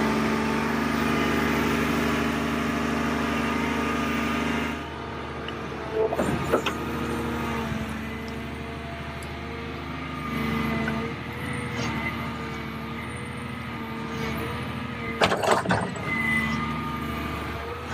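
Volvo 360 crawler excavator's diesel engine and hydraulics working as it digs and dumps soil. The engine is loudest for the first few seconds, then eases off, with short clanks about six and fifteen seconds in.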